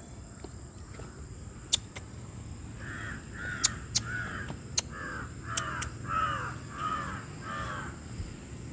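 An animal calling: a run of about eight short, arched calls, roughly one every two-thirds of a second, starting about three seconds in. A few sharp clicks come in between.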